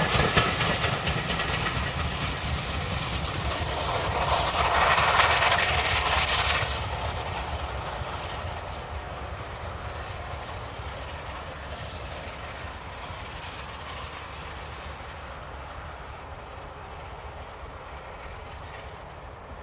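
Steam-hauled passenger train running past on the rails, the coaches rumbling and clattering over the track. A louder stretch between about four and six seconds in, then the sound fades steadily as the train draws away.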